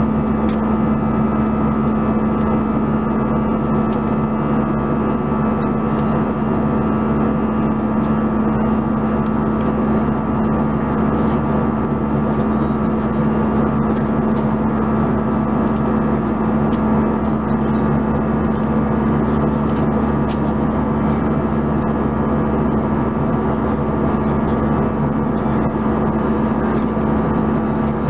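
Steady cabin noise of an Airbus A320-214 in cruise, heard inside the cabin: the even drone of its CFM56-5B turbofans with rushing airflow. A constant low hum runs under fainter, higher steady tones.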